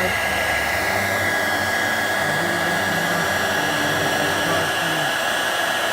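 Electric heat gun running steadily, with its fan rushing and a constant high whine, heating the phone to soften the adhesive under the cracked glass.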